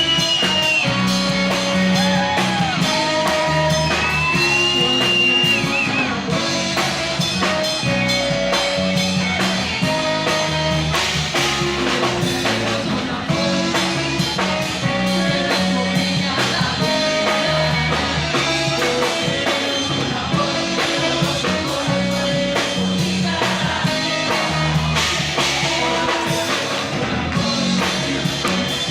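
Live rock band playing: an electric guitar lead line with bent notes over a stepping bass line and a drum kit.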